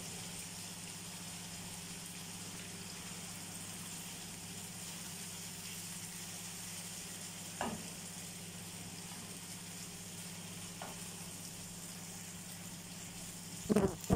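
Marinated chicken strips sizzling steadily as they fry in hot oil in a nonstick frying pan, stirred with a wooden spoon, with a brief knock about halfway through.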